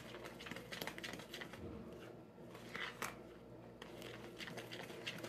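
Plastic spatula stirring stiff cookie dough in a plastic tub: irregular scraping, squishing strokes as flour is worked into the dough.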